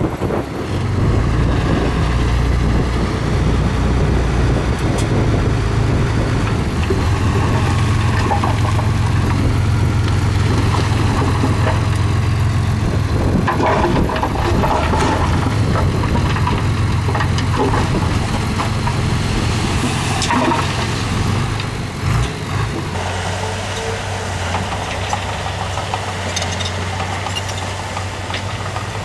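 Heavy diesel engine of road-building machinery running steadily under load, with a burst of clattering about halfway through. Near the end it settles to a lighter, quieter running.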